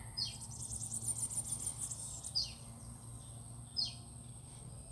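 Forest ambience: a steady high insect drone, a rapid high trill in the first couple of seconds, and a bird giving three short downward-swept calls about two seconds apart, with a low steady hum underneath.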